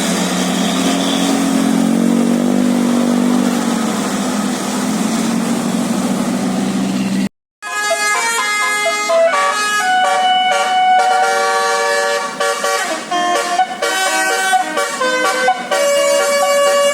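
A bus running with engine and road noise, then, after a sudden cut about seven seconds in, a multi-tone basuri telolet bus horn playing a quick tune of changing notes.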